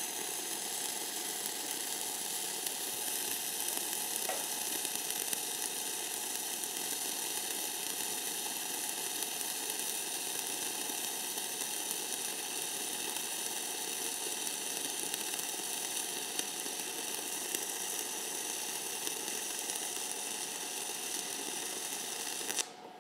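Self-shielded flux-cored arc welding (FCAW-S) with .035" E71T-GS wire at 18.5 volts and 300 wire feed speed: the arc runs steadily as one continuous bead and cuts off near the end.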